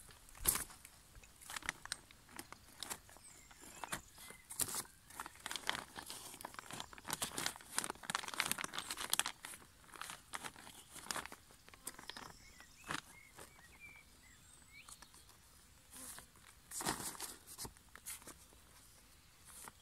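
Black plastic pond liner crinkling and rustling while a small trowel and then bare hands scrape and scoop wet soil out through a slit in the liner. The rustles and scrapes come in irregular clusters, loudest about eight seconds in and again near seventeen seconds.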